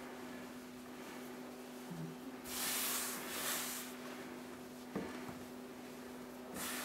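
Hands rubbing butter and flour into crumbs for shortcrust dough on a floured wooden worktop: soft, hissy rubbing and scraping, loudest for about a second midway and again near the end, with a light knock about five seconds in. A steady low hum runs underneath.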